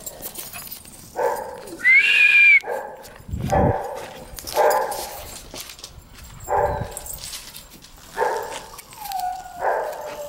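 Dogs at play barking several times, with a loud, high drawn-out whine about two seconds in and a falling whine near the end.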